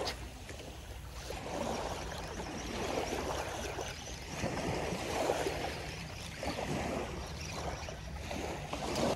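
Small waves washing up on a shallow beach, swelling and fading several times, over a steady low rumble of wind on the microphone.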